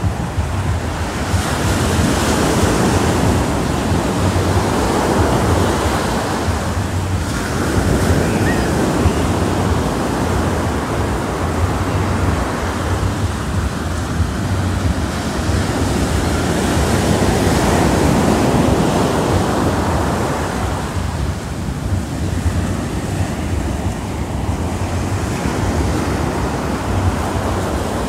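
Small ocean waves breaking and washing up a sandy beach, the surf swelling and fading every few seconds, over a steady low rumble of wind on the microphone.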